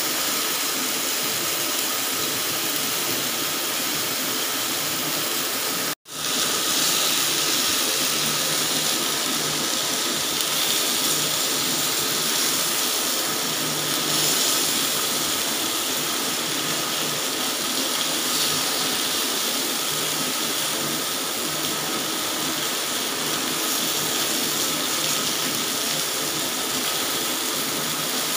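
Chicken sizzling on a hot ridged grill pan over a butane stove, a steady hiss while the pieces are basted. The sound cuts out for an instant about six seconds in, then resumes.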